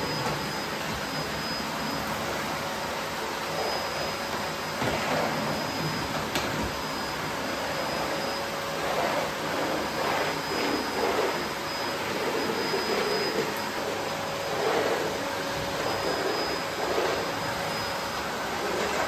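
Vacuum cleaner running steadily with a constant whine. From about halfway on, its sound wavers every second or so as the nozzle is worked over a surface.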